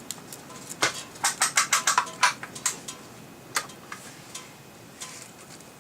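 Diana Model 54 air rifle being side-cocked and loaded with a pellet: a quick run of sharp clicks about a second in, then a few scattered clicks.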